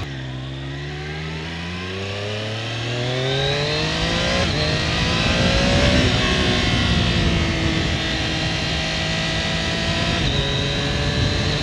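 Triumph Daytona 765 Moto2's three-cylinder engine through its stock exhaust, ridden on the road. Its pitch climbs for the first six seconds or so as the bike accelerates, then slowly eases back down, with a sudden drop in pitch near the end.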